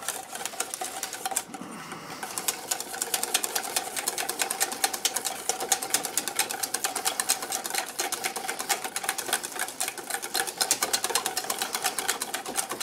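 Wire whisk clicking rapidly against a stainless steel mixing bowl, beating a thick mixture of cream soups thinned with chicken stock. A steady, fast run of clicks, pausing briefly about a second and a half in.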